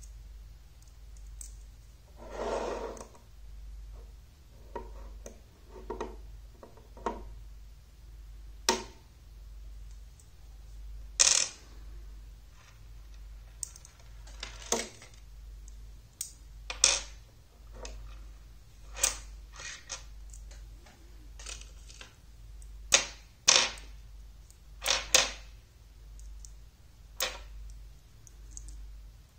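Magnetic rods and steel balls of a magnetic construction set snapping and clicking together as a structure is assembled by hand: sharp, irregular clicks every second or two, with a short rattling stretch about two seconds in.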